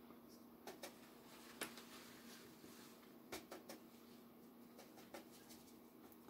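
Near silence: room tone with a faint steady hum and a few soft, scattered clicks and taps.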